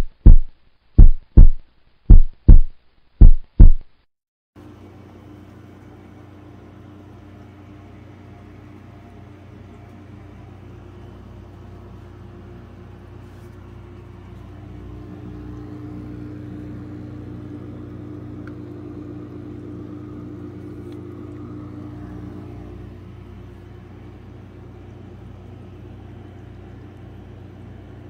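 A deep heartbeat-like sound effect, loud paired thumps for about four seconds, which stops abruptly. A steady low hum with a faint drone follows, swelling a little midway.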